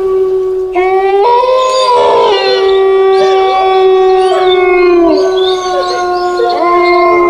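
Several dogs howling together in long, overlapping held howls. One howl holds steady throughout, a second rises in about a second in, and another joins near the end.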